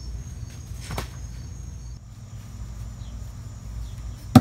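A thrown knife strikes a wooden target with one sharp, loud thunk near the end, with a fainter knock about a second in. Steady insect chirring runs underneath.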